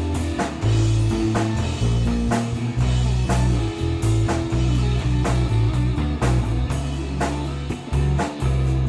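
Rock band playing live with two guitars, bass guitar and drum kit: a heavy, sustained bass line under guitar chords, with drum hits about twice a second.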